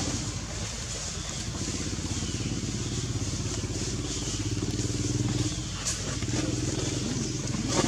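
An engine running steadily with a low hum whose pitch shifts slightly partway through, with a couple of brief clicks.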